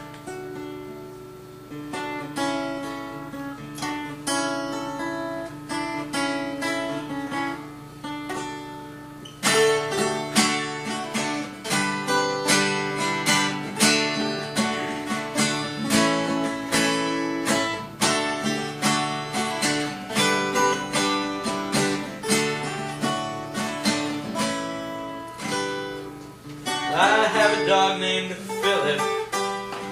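Two acoustic guitars playing a song intro: lighter picked chords at first, then louder, fuller strumming from about ten seconds in. A voice comes in singing near the end.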